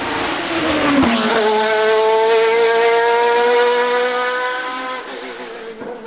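Sports-prototype hillclimb race car passing close: the engine note drops as it goes by about a second in, then it accelerates away uphill, the pitch climbing slowly before fading near the end.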